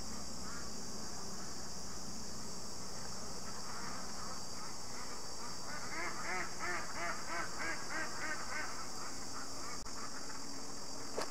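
Ducks quacking: a quick run of about a dozen quacks starting some six seconds in and lasting about three seconds, over a steady high hiss. A short click comes near the end.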